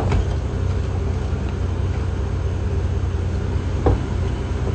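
Car engine idling, a steady low hum, with two short knocks: one just after the start and one near the end.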